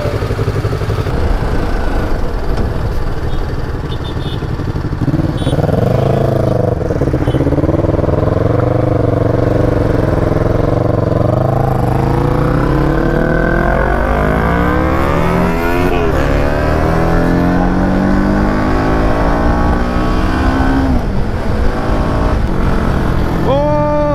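Sport motorcycle engine pulling away and accelerating, its pitch climbing through the revs and dropping back at gear changes about two-thirds of the way through and again near the end, over wind rush.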